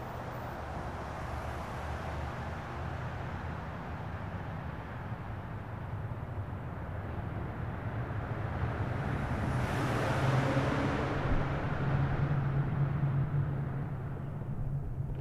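Motorcycle engine running at a steady cruise under wind and road noise, getting louder from about nine seconds in.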